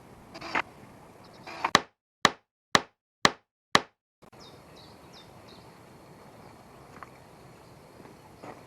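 Knocks on wood from carpentry work, a couple in the first second or two. Then five sharp clicks half a second apart over dead silence, then a quiet outdoor background with bird chirps and a few faint taps.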